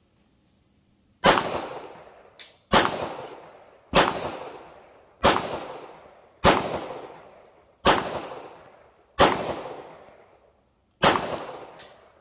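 9mm pistol fired eight times at a slow, even pace, about one shot every 1.3 seconds. Each sharp crack is followed by a long fading echo.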